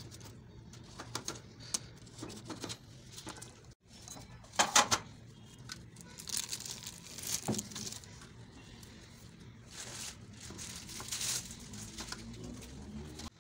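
Butter paper crinkling and tearing as it is peeled off a freshly baked loaf cake, with a short run of sharp knocks about a third of the way in.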